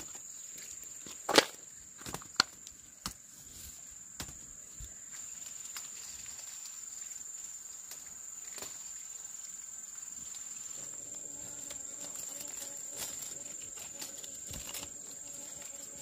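Steady high-pitched insect drone, with several sharp knocks in the first five seconds, the loudest about a second and a half in.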